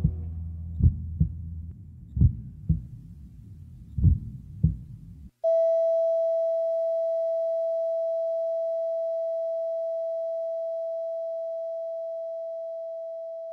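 The song's last bass note dies away, then a heartbeat sound effect: three lub-dub double thumps that grow further apart. About five and a half seconds in, a steady single-pitch beep like a heart-monitor flatline starts suddenly and holds, slowly getting quieter.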